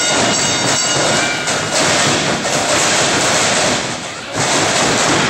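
Crowd noise from a small audience shouting and cheering, loud and steady, dipping briefly about four seconds in.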